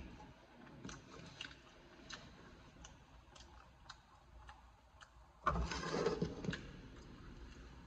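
Faint wet clicks and smacks of chewing and finger-licking. About five and a half seconds in, a hand and jacket sleeve pass close over the microphone, making about a second of loud rustling and handling noise.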